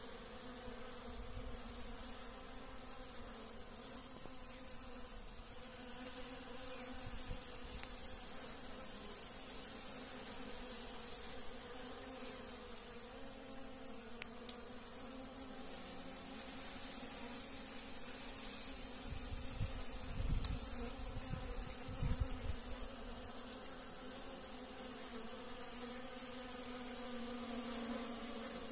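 A swarm of Africanized honeybees buzzing steadily as they forage for pollen on licuri palm flowers, a low, even hum. A couple of soft knocks come about two-thirds of the way through.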